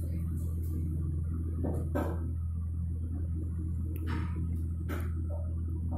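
LG inverter refrigerator compressor running with a steady low hum, started up again after its faulty control board was replaced. A few faint clicks and knocks sound over it.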